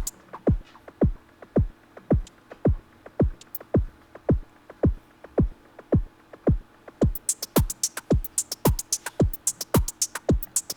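Drum-machine beat played from a software synth preset: an electronic kick whose pitch drops quickly on each hit, repeating about three times a second. Bright hi-hat or cymbal ticks come back in about seven seconds in.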